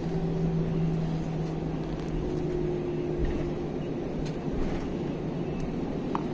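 Steady cabin noise of an airliner rolling on the ground after landing, heard from inside the cabin: a low even rumble with a constant engine hum.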